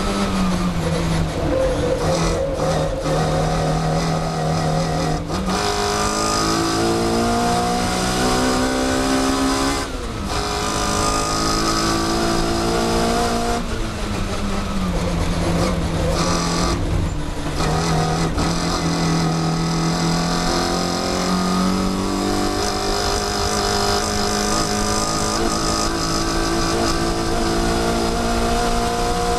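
Mini Cooper S engine heard from inside the cabin while racing, revving up through the gears. The revs drop sharply about ten and again about fourteen seconds in, then climb again and hold high near the end.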